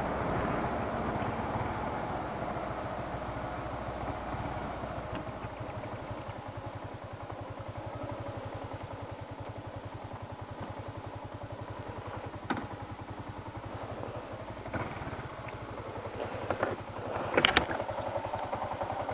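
Yamaha Sniper 150's single-cylinder four-stroke engine running under the rider, easing down over the first few seconds and then running steadily at low speed. A few short clicks come in the second half, the loudest about a second and a half before the end.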